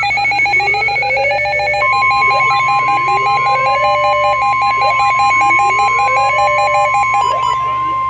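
Midland NOAA weather radio's alert alarm going off for a warning: a rapid pulsing beep with repeating rising siren sweeps. About two seconds in, the broadcast's long steady warning tone joins it. The pulsing alarm cuts off about seven seconds in, leaving only the steady tone.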